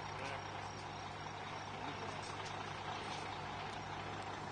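Heavy truck engine running steadily as it hauls a house on a moving trailer at a crawl, with a constant low hum.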